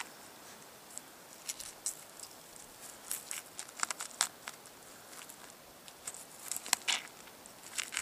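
A pocket knife slicing through elk meat and membrane along the spine and hip bone: faint scattered crackling and tearing sounds that come in small clusters, a few sharper clicks among them.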